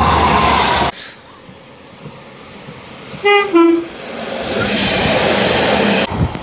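Loud noise of a passing train that cuts off about a second in. About three seconds in, a GWR Class 143 'Pacer' diesel unit sounds its two-tone horn, a short high note then a lower one, and its running noise builds as it passes.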